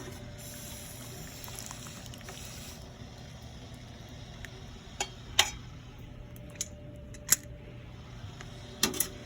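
Metal seat-belt buckles clinking against the pot as dyed belts are lifted out of the dye bath, with some liquid sounds. There are a few sharp clinks, the loudest about midway and a couple of seconds later, over a steady low hum.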